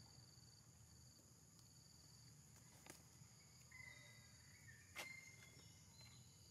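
Faint forest ambience: a steady high insect trill, with two sharp clicks about two seconds apart near the middle and a few brief high chirps between them.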